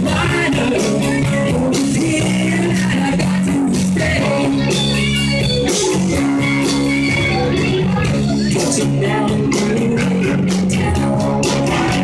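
Live rock band playing loudly: electric guitar, bass guitar and drum kit, with the drums striking steadily.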